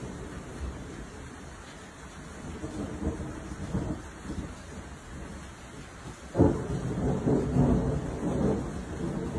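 Rolling thunder: a low rumble swells about three seconds in, then a sudden loud clap about six and a half seconds in rolls on as a long rumble.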